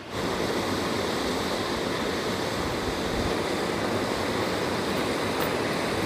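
Steady, even rush of falling water from a waterfall and its cascades.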